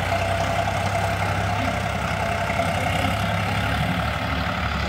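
Sonalika DI 50 tractor's diesel engine running steadily as it pulls a trailer loaded with soil.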